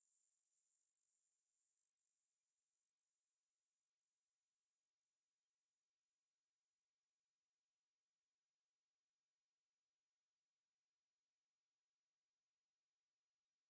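Hearing-test tone: a single very high-pitched pure tone, pulsing about once a second and rising slowly in pitch toward the upper limit of human hearing.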